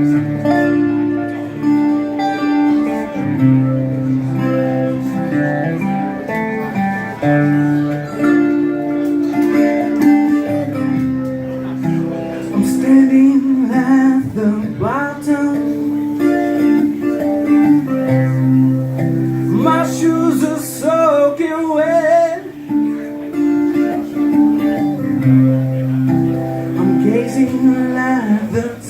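Blues-style guitar music, with notes that waver and glide in pitch around the middle.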